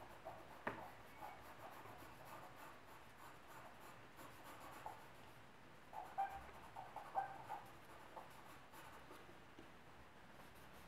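Faint scratching of a charcoal pencil on drawing paper in short strokes, with a sharp tick under a second in and a cluster of quicker, louder strokes around six to seven seconds in.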